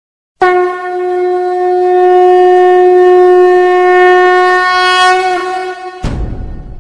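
A conch shell (shankha) blown in one long steady note for about five and a half seconds, then cut off by a sudden deep boom that fades away.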